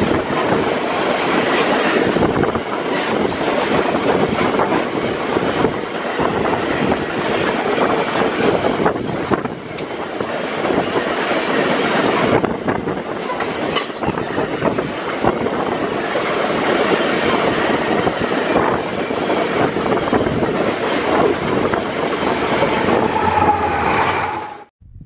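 Freight train of steel ore gondola wagons passing at high speed: a steady rumble and clatter of wheels on the rails. Near the end a diesel locomotive passes and a steady hum joins in, then the sound cuts off suddenly.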